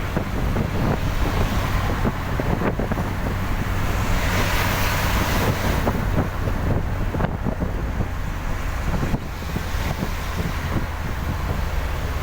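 Vehicle driving on a wet road in the rain: steady engine and tyre noise with a low hum, and a louder hiss swelling about four to six seconds in.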